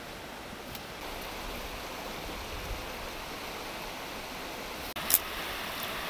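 Shallow rocky river running steadily over stones in small rapids, with a brief sharp click about five seconds in.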